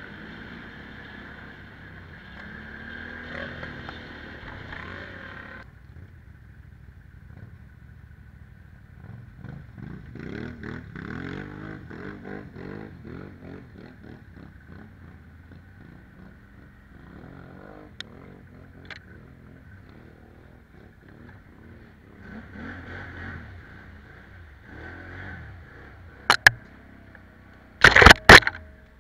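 ATV (quad bike) engine running and revving up and down while riding off-road over mud. Near the end come a few loud, sharp knocks and scrapes as branches hit the camera.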